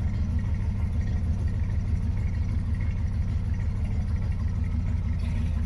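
Pickup truck engine idling steadily while it serves as the jump-start source for a hard-starting Toyota Hiace.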